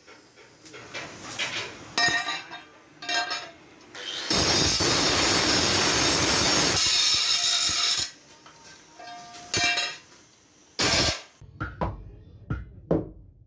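Angle grinder with a cutting disc biting into a sheet-iron griddle blank: a few short bursts, then one steady, harsh cut lasting about four seconds, then more short bursts. Near the end, a few sharp metal clanks.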